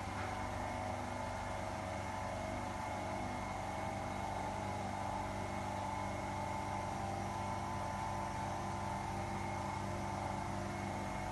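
Seawater flake ice machine running steadily: its refrigeration compressor and motors give a constant hum with a few steady tones.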